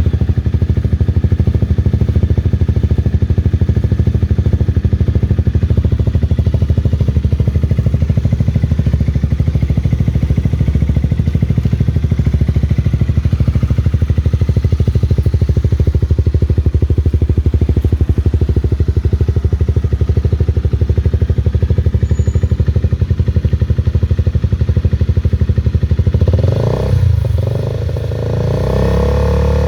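2012 Honda CBR250R single-cylinder engine idling steadily through an SC Project full-system exhaust. Near the end the revs rise and fall briefly, then hold slightly higher.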